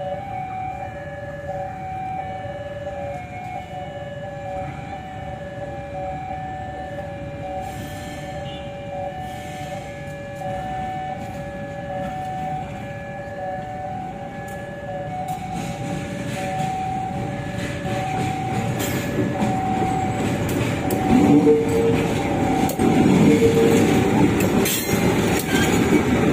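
Level-crossing warning alarm sounding a repeating two-tone pattern. From about halfway through, a KAI CC 203 diesel-electric locomotive shunting light engine comes closer, its engine and wheels growing louder until it passes close by near the end.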